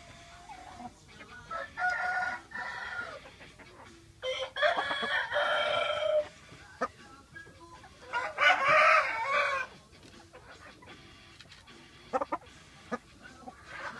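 Thai gamecock roosters crowing: three long crows a few seconds apart, each about a second and a half.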